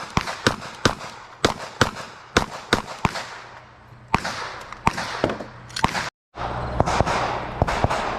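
Glock pistol shots fired in a rapid string, about two to three a second, with short pauses between groups of shots.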